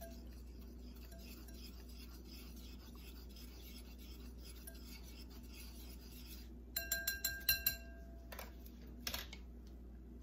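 A spoon stirring a dressing in a bowl, scraping softly against the inside. About two-thirds of the way in comes a quick run of ringing clinks, then a couple of single knocks.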